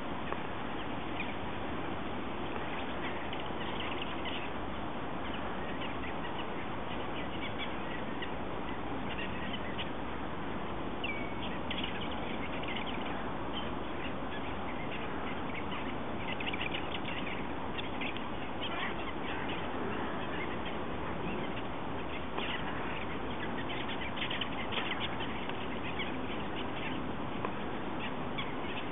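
Mixed feeding flock of black-tailed godwits and ducks calling: many short, high calls scattered through, over a steady background hiss.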